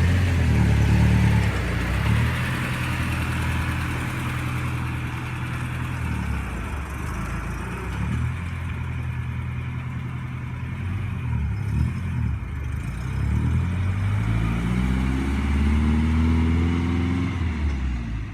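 Subaru flat-four engine running as the car is driven after its manual gearbox swap. The engine note holds steady, shifts up and down, and rises and falls in a rev about three-quarters of the way through.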